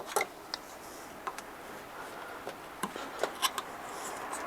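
Solid rubber scooter tire rubbing and scraping against the wheel rim as it is worked on, with a few light clicks scattered through.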